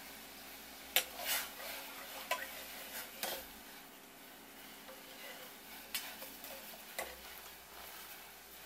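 Stainless steel ladle stirring and scooping simmering sauce in a saucepan, clinking against the pot several times, the sharpest clink about a second in.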